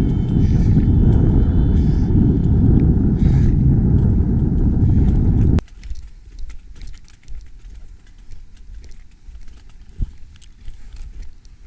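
Wind buffeting the microphone, a loud low rumble that cuts off suddenly about five and a half seconds in. After it, much quieter wind with scattered light clicks.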